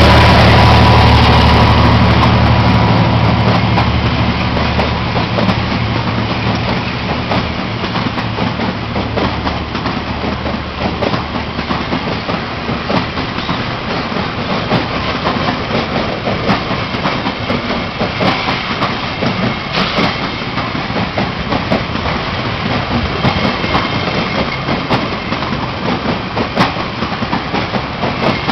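Freight train of covered grain hopper cars rolling past, steel wheels clicking and clacking over the rail joints. Over the first few seconds the engine of the EMD GR-12 diesel locomotive fades away as it pulls ahead.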